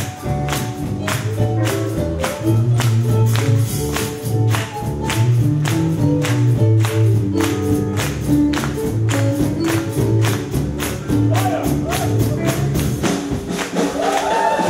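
Live band playing a gospel groove: electric upright bass notes and keyboard chords over a steady percussion beat of about three to four hits a second. A singing voice comes in near the end.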